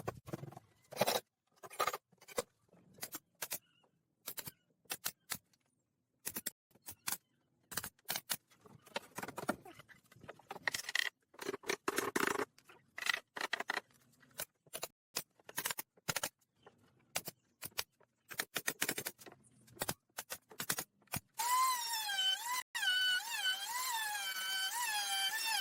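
Irregular taps, knocks and scrapes of hand work on wood, with short gaps between them; music comes in near the end.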